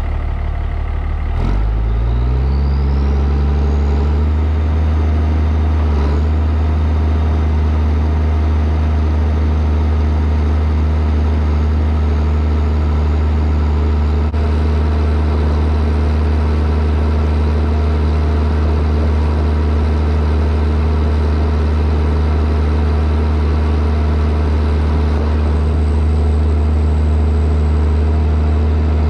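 White 2-135 diesel tractor engine speeding up about two seconds in, then running steadily at working speed while pulling a New Holland BR770A round baler.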